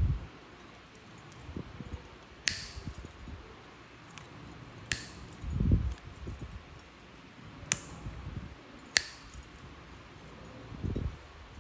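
Metal nail nippers snipping through a thickened, fungus-crusted toenail: four sharp snaps a couple of seconds apart, with low dull bumps from handling between them.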